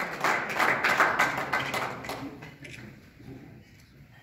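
A small crowd clapping, dying away about two seconds in.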